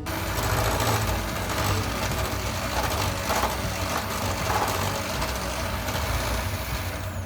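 Electric mixer running steadily, beating lemon curd and cream cheese together into a smooth cream, and switched off near the end.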